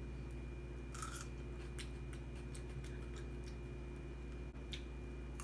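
Chewing of crisp Korean melon flesh: a few soft, moist crunches, the clearest about a second in.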